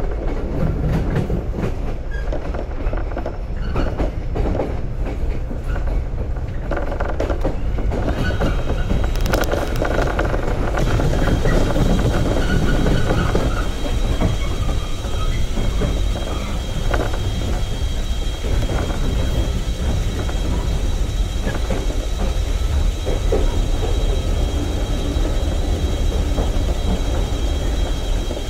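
JR 415 series electric multiple unit running, heard from inside the car: a steady rumble of wheels on rail with clicking over the rail joints. From about eleven seconds in, a thin, steady high squeal joins it as the train nears a station platform.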